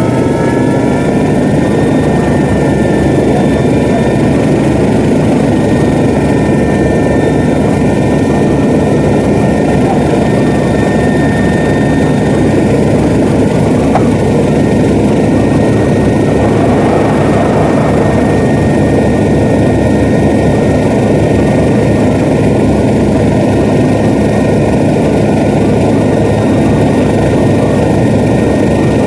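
Helicopter in flight heard from on board: loud, steady rotor and engine noise with a thin high whine that rises a little in pitch in the first second.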